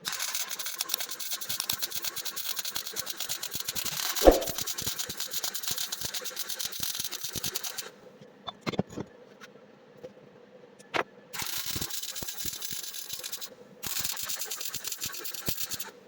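A power tool run in three bursts of harsh, hissing noise, each starting and stopping abruptly; the first lasts about eight seconds and the other two about two seconds each. There is a sharp knock about four seconds in and another near the middle.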